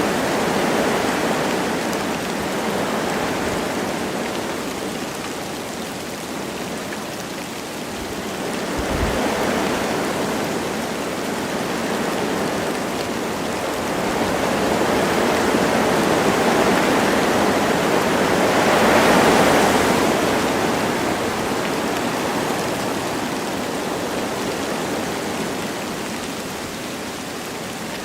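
Wind rushing through forest trees with light rain falling, a steady rush that swells and eases in slow gusts, the strongest gust about two-thirds of the way through.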